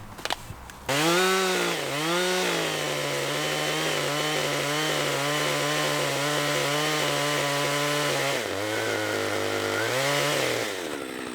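A two-stroke chainsaw revs up sharply about a second in, then runs at high, steady speed under load as it cuts the side off a large maple log. The engine speed dips near the end, rises once more, then falls away.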